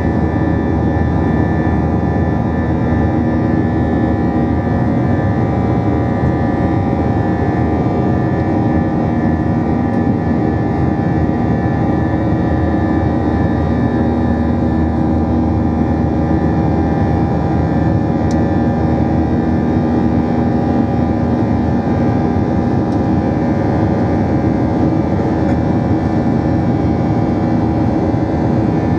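Airbus A321-200's jet engines heard inside the cabin from a window seat over the wing: a steady, loud roar with several held tones running through it, during the climb-out after takeoff.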